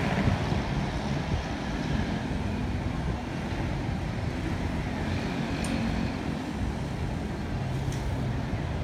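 Steady city traffic noise: a low rumble of vehicles, with an engine hum that grows a little stronger in the middle.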